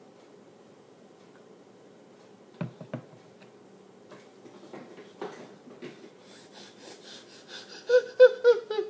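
A young boy huffing and gasping from the burn of a jalapeño: quick, rapid breaths from about six seconds in, ending in about four loud, short, pitched cries. A couple of sharp knocks come just before, about a third of the way in.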